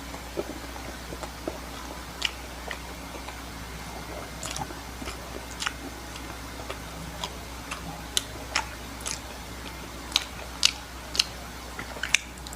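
Close-miked eating sounds of a person chewing pizza: irregular sharp mouth clicks and smacks, coming more often in the second half, over a steady low hum.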